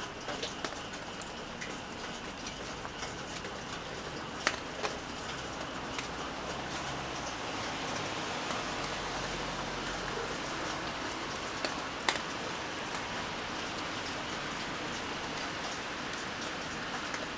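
Steady rain falling, with the odd louder drop striking sharply, most clearly about four and a half seconds and twelve seconds in.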